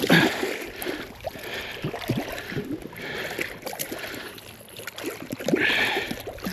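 Shallow lake water sloshing and splashing in several separate swishes, the loudest near the end, with small drips and ticks between them, as a large trout is held in the water to be released.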